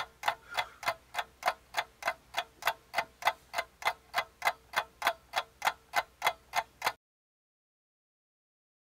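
Ticking clock, fast and even at about three ticks a second, cutting off abruptly about seven seconds in, followed by dead silence. The ticking marks time passing while the glue dries.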